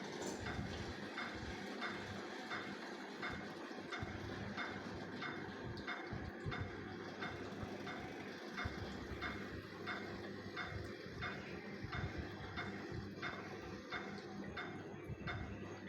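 Hospital cardiac monitor beeping steadily with each heartbeat, a short high beep about one and a half times a second, over a steady low hum.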